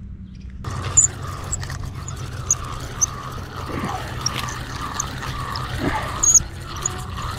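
Spinning reel being cranked to retrieve line, a steady wavering whir, with faint high chirps now and then.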